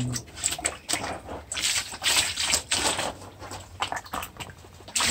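Liquid sloshing and swishing in irregular strokes as hands press and move a wax-coated batik cloth about in a tank.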